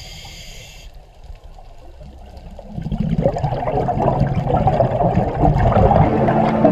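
Water bubbling and gurgling, as of air bubbles rising underwater, growing much louder about three seconds in. A short high ringing tone sounds at the very start.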